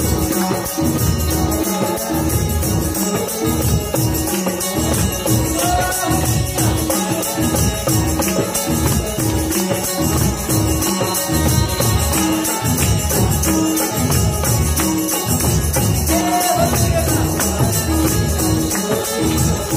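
Live devi jas devotional folk music: a harmonium holding reedy notes over a steady hand-drum rhythm, with fast, even jingling percussion on top and short melodic phrases.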